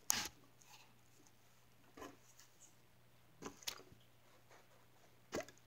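A clear plastic cup being handled on a wooden table: a few short taps and knocks, the loudest right at the start and others spread through the rest, with slime being worked out of the cup.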